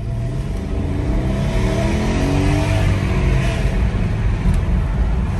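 2012 Mercedes-Benz GL450's 4.6-litre V8 and drivetrain under way and accelerating, the engine note rising over a steady low road rumble. There is no knocking from the transfer case: with its new chain it runs smooth, with no more noises.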